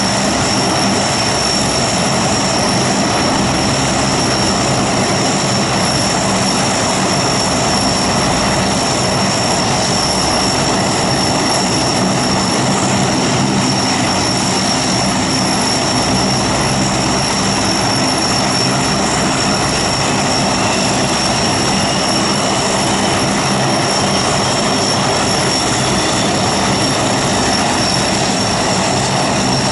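Lockheed Hercules' four Allison T56 turboprop engines running steadily with all propellers turning: a constant high turbine whine over a loud, even propeller drone.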